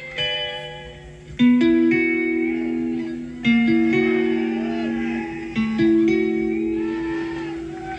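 Blues-rock instrumental on electric guitar: quick picked notes, then from about a second and a half in long held two-note chords that bend and sustain, each new phrase hitting hard.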